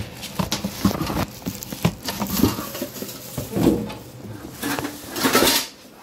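A boxed toaster oven being pulled out of its cardboard carton: knocks, clatter and rustling of cardboard and packing, with a longer scraping rustle about five seconds in.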